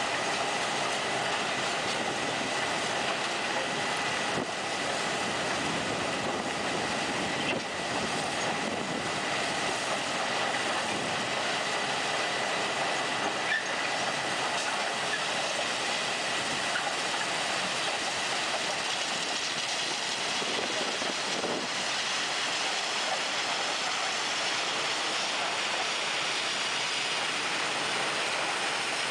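A rail-mounted ditching machine working along the track: a steady din of its digging wheel, conveyors and engines together with the running of rail wheels, with no break.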